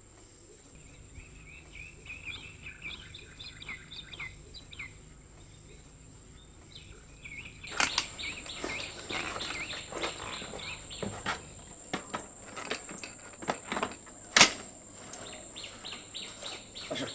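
Small birds chirping, then a run of clicks and knocks, the loudest a single sharp knock late on.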